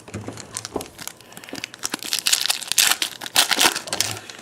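Foil trading-card pack wrapper crinkling and tearing as a pack is handled and opened, with many sharp crackles that are densest and loudest in the second half.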